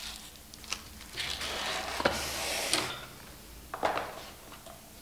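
Bubble wrap and plastic packaging crinkling as parts are lifted out, with a few sharp clicks of clear acrylic pieces knocking together and being set down on the bench. The crinkling runs from about a second in to near the three-second mark, and a last click comes about four seconds in.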